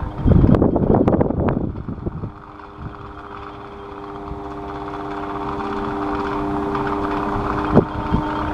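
Electric fan running: gusty air rush for about two seconds, then a steady motor hum with several steady tones that slowly grows louder, and a single click near the end.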